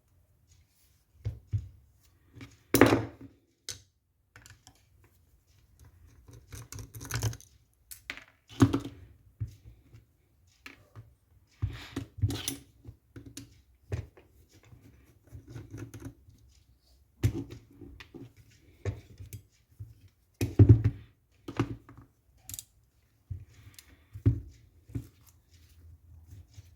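Irregular clicks, taps and knocks of an airsoft M14 rifle's parts and tools being handled during disassembly, with two louder knocks about 3 seconds in and about 21 seconds in.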